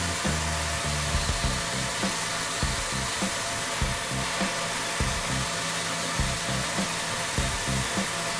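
A Tormach 770 CNC mill cuts canvas Micarta with a small carbide end mill, heard as a steady rushing hiss together with the shop vacuum. Background music with a low, stepping bass line plays under it.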